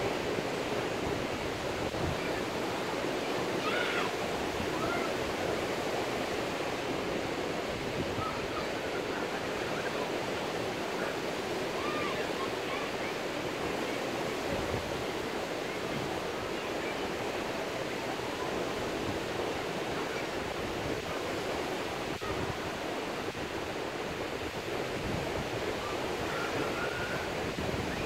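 Steady, even wash of ocean surf breaking along a sandy beach, with a few faint short high chirps now and then.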